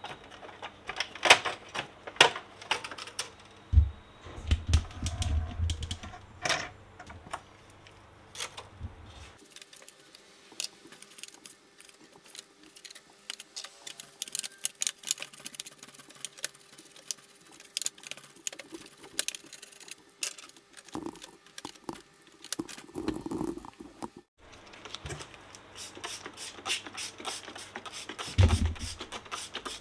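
Irregular clicks and clatters of plastic and metal printer parts being handled and worked with a tool inside a disassembled inkjet printer, with a few dull thumps among them.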